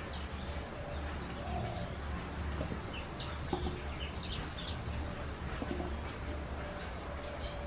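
Small birds chirping in short, high calls scattered through, with a quick run of about five chirps a second near the end, over a steady low hum.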